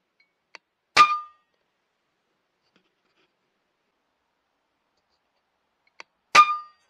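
Two shots from an FX Impact M3 .22 pre-charged pneumatic air rifle, about five seconds apart. Each is a sharp crack with a short metallic ring and is preceded by a faint click.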